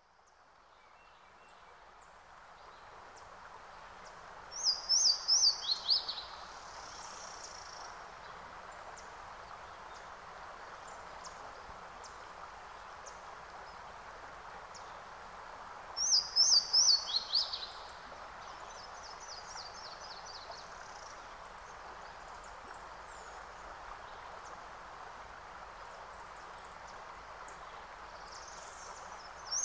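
Birdsong ambience: a steady soft hiss that fades in, with a bird's quick phrase of notes stepping down in pitch and a softer trill after it. The phrase comes three times, about every twelve seconds, the same each time.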